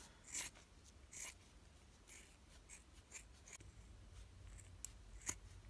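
Scissors snipping through a bra strap: a series of faint, irregular snips.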